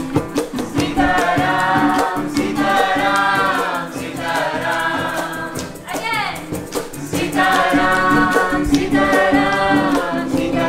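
A group singing a Sanskrit devotional mantra on repeat, in long held and gliding phrases over a steady low drone, with hand percussion ticking throughout.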